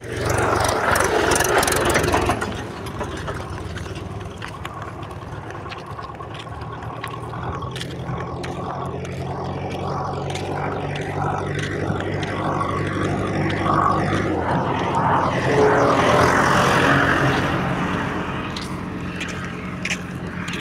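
Diesel engine of a red Mahindra tractor pulling a trolley, running steadily as it drives past close by. It is loudest for the first two seconds, then carries on as a lower, steady engine sound.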